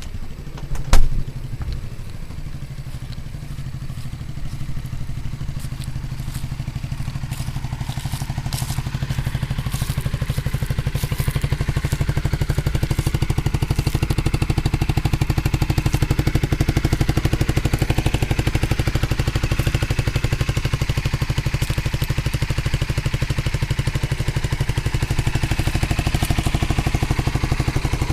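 Honda CBR125R's 125 cc single-cylinder four-stroke engine running steadily with the air snorkel removed and a slightly modified stock exhaust, a little louder after about ten seconds. There is a loud knock about a second in and loose tools clicking and rattling on the bike for several seconds after.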